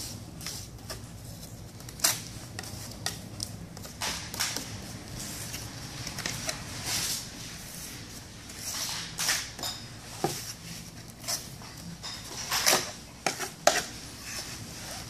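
Metal putty knife scraping and clicking as reinforcing mesh is worked down into wet roof sealant, in irregular strokes with a few sharper clicks.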